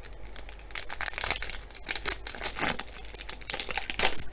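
A Topps baseball card pack's wrapper being torn open and crinkled by hand, an irregular run of crackling rustles.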